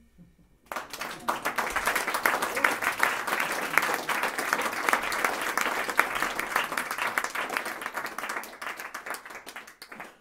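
Audience applauding, starting about a second in and thinning out near the end.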